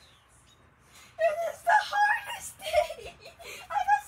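A child's voice making loud, high-pitched wordless cries in several short bursts, starting about a second in.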